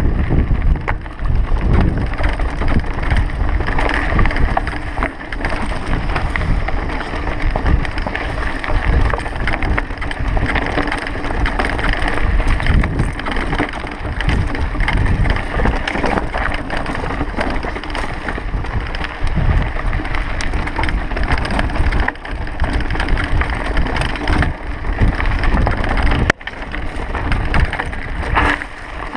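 Mountain bike descending a rough dirt singletrack: a continuous rattle and knocking of the bike and camera over the bumps, with wind buffeting the microphone.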